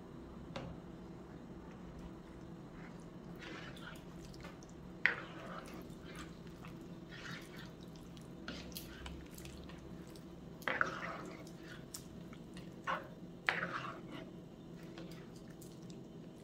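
A ladle stirring a pot of lamb and vegetable stew, the broth sloshing and dripping, with a few sudden louder splashes, the loudest about five seconds in.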